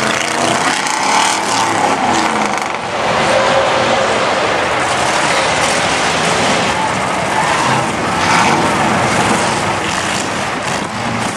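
Lifted pickup truck's engine revving up and down under heavy load as its tyres spin and churn through a deep mud pit; the truck makes little headway and is bogging down.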